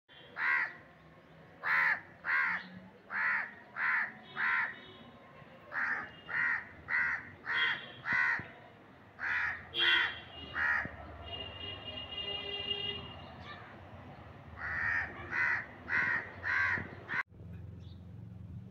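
Crows cawing repeatedly, in runs of three to six calls with short gaps between the runs.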